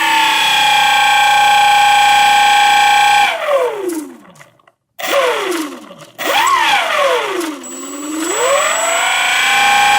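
Faulty electric motor running with a steady high-pitched whine, which the owner takes as a sign of a bad motor. About three seconds in it is switched off and winds down in pitch to a stop, then restarts, dips once more and spins back up to the same whine.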